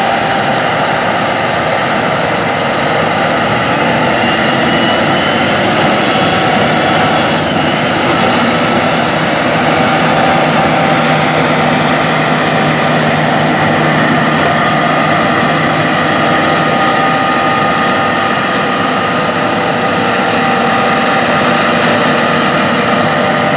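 Heavy John Deere harvest machinery working under load: a constant diesel engine drone with several steady whining tones over it.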